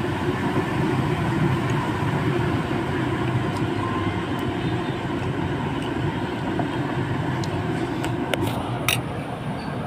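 Steady rumble of road vehicles and engines from a street at night. A few sharp clicks come near the end.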